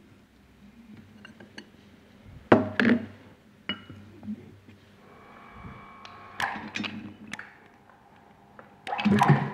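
Metal tools and pump parts knocking and clinking together during pump disassembly. The loudest knock comes about two and a half seconds in, a brief metallic ring follows a second later, then scattered clicks and a denser clatter near the end.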